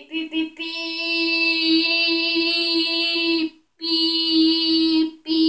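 A child's voice singing one high note and holding it steadily for about three seconds, then after a short break taking it up again twice, the last time only briefly.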